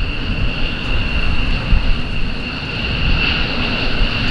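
Jet aircraft engine whine, a steady high tone that swells slightly about three seconds in, over heavy wind noise on the microphone.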